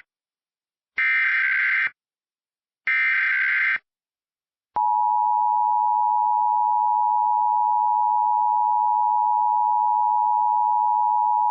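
Emergency Alert System SAME header: the end of one burst of warbling digital data tones, then two more identical bursts, each just under a second long with about a second of silence between them, marking the start of a new alert. About a second after the last burst, the EAS attention signal begins: a steady two-tone chord of 853 and 960 Hz.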